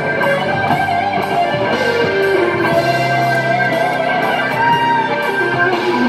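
Sunburst single-cutaway electric guitar playing a slow lead line: long sustained notes bent up and down in pitch over held low notes.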